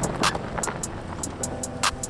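Background music with a steady beat of crisp, cymbal-like ticks; held notes come in near the end.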